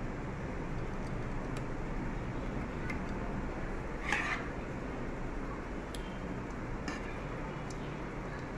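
A serving spoon clinks and scrapes lightly against a large aluminium pot as thick chicken gizzard and liver curry is spooned in: a handful of faint, short clicks and one brief scrape about four seconds in, over a steady background hiss.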